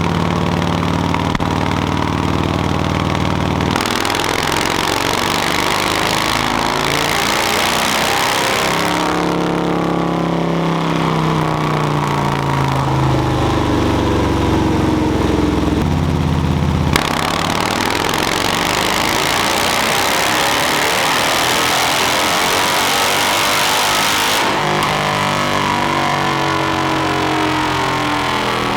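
A Harley-Davidson Milwaukee-Eight V-twin runs through a Khrome Werks Outlaw 3 two-into-one exhaust with a raspy note. It idles, then runs up in revs under load with the pitch rising and falling, as in a dyno pull, and settles back to a steady lower run near the end.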